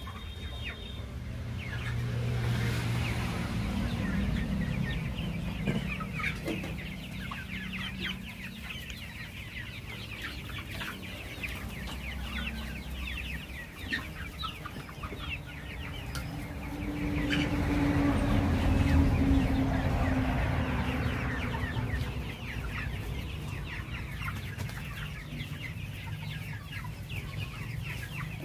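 A flock of two-month-old Kaveri country-breed chickens chirping and clucking constantly, many short calls overlapping. A steady low hum runs underneath and grows louder for a few seconds just past the middle.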